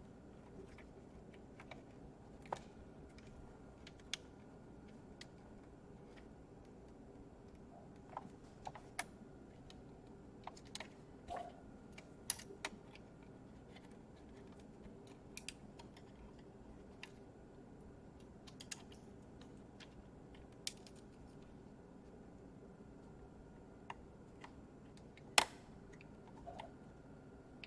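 Scattered small, sharp clicks and taps of hands and tools working on a laptop's plastic case and parts, irregular and a few seconds apart, with one louder click about 25 seconds in, over a low steady hum.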